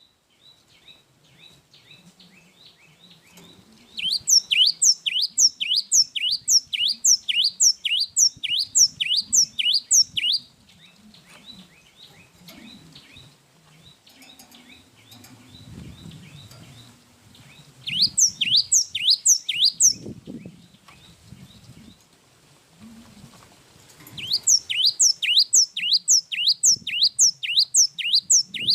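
Cinereous tit (gelatik wingko) singing in three bouts of quick, repeated high notes, each a sharp downward whistle, about three notes a second. The bouts start a few seconds in, at about two-thirds of the way, and again near the end, with only faint background noise between them.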